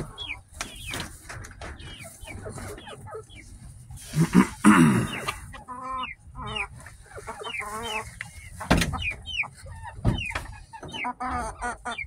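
Backyard silkie chickens clucking and giving many short, high, falling chirps, with a louder, longer call about four seconds in. A single sharp knock sounds near nine seconds.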